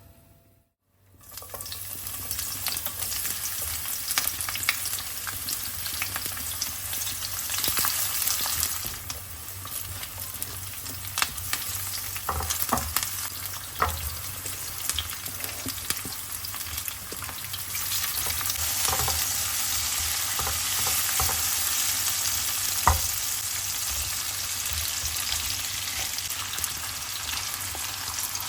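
Food sizzling as it fries in a pan, with a cooking utensil scraping and knocking against the pan as it is stirred. The sizzle starts about a second in, and the knocks are irregular, the sharpest near the end.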